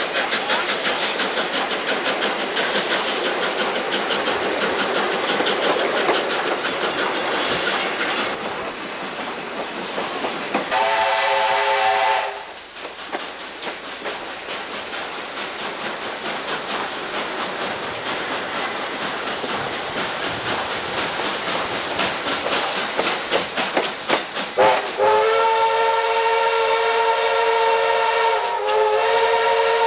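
Ex-South Australian Railways broad-gauge steam locomotive running at speed, a steady hissing rush with rapid beats. Its chime whistle sounds several notes at once: a short blast about eleven seconds in, then a long blast from about twenty-five seconds to the end that dips briefly near the end.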